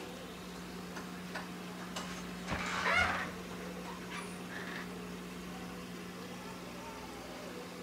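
Steady low hum of an aquarium air pump. There are a few faint clicks and one brief higher-pitched sound about three seconds in.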